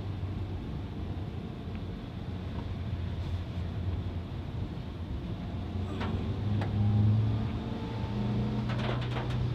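Car engine and road noise heard from inside the cabin while driving: a steady low drone whose note rises a little about seven seconds in. A few faint clicks come near the end.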